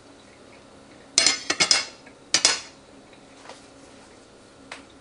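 Metal fork clinking and scraping against a ceramic plate: a quick run of clinks and short scrapes just over a second in, one more sharp clink about halfway, then a couple of faint ticks.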